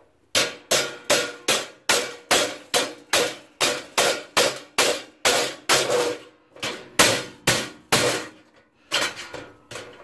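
Flat-blade screwdriver striking a knockout tab in a steel breaker-panel cover over and over, sharp metallic taps about two to three a second, working the tab loose. The taps pause briefly near the end, then a few more follow.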